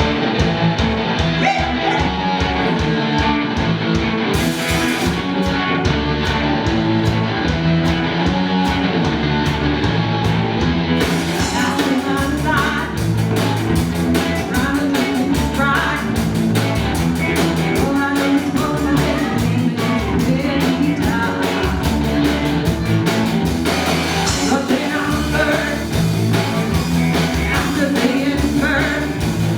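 Live rock band playing: a thinner intro with bass, guitar and drums, then the full band with crashing cymbals coming in about eleven seconds in, and singing over it soon after.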